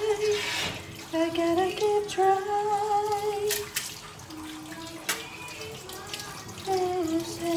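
A woman humming a tune in long held notes while a kitchen tap runs into a stainless-steel sink and a cloth scrubs a metal oven tray. A few sharp clicks come about halfway through.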